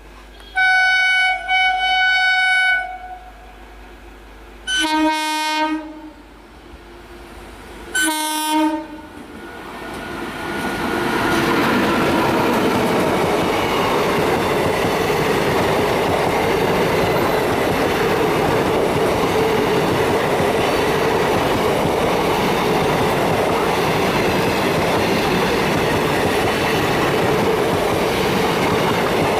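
Horn of a WAP-5 express locomotive: one long blast, then two shorter, lower-pitched blasts a few seconds apart. About ten seconds in, the superfast express arrives and passes at speed, a loud, steady rush of wheels and rail clatter.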